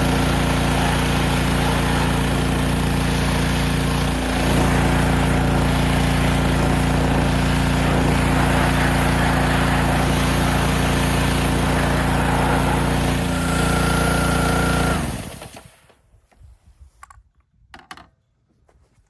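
Honda GCV190 single-cylinder engine on a pressure washer running smoothly and steadily, then shut off about 15 seconds in, its pitch falling as it winds down. Afterwards only a few faint clicks.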